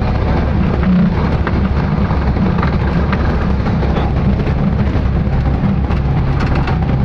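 Steady drone of a Cessna 172's piston engine and propeller heard inside the cabin, with a constant rush of air noise over it.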